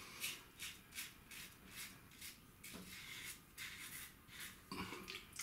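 1961 Gillette Adjustable (G2) safety razor, set to 7 with a Gillette Nacet blade, scraping through lathered stubble on the neck and jaw: a series of short, faint raspy strokes, about two or three a second.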